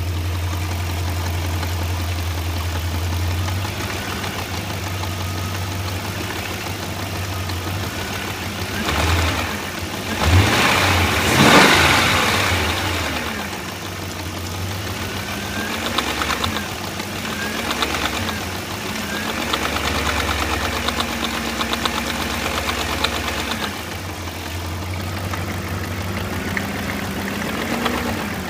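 BMW M62B44 4.4-litre V8 running with a knock from the timing drive. It idles steadily and is revved up and back down around ten seconds in, with smaller rises and falls in speed later.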